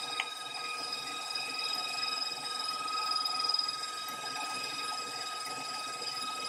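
KitchenAid stand mixer running steadily with a constant whine, its beater whipping buttercream frosting.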